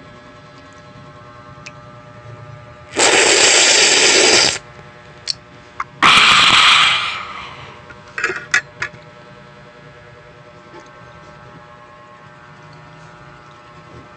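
Two loud bursts of noise, each a second or more long, the second fading away. Between and after them come a few light clicks of a metal spoon on a ceramic plate.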